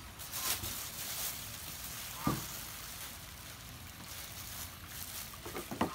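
Steady hiss of rain falling, with a short rising squeak about two seconds in and a couple of brief clicks near the end.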